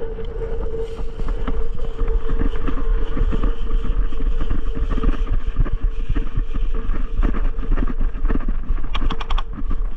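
Wind buffeting the microphone, a heavy low rumble under a steady hum, with a quick run of sharp clicks about nine seconds in.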